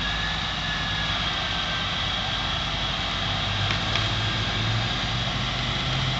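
A truck engine running steadily as it hauls a cut section of tree on a cable.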